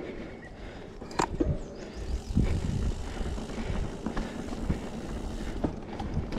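Mountain bike rolling along a dirt trail: a steady low rumble from riding, with sharp rattles and knocks from the bike over bumps, the sharpest about a second in.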